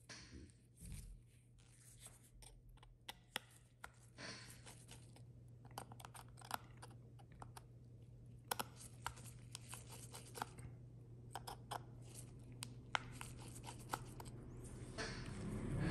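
Small irregular clicks and scratches of a precision screwdriver turning and lifting the tiny screws of an opened iPhone 11 Pro's connector bracket, with the rustle of gloved fingers, over a low steady hum. A longer scratchy rustle comes near the end.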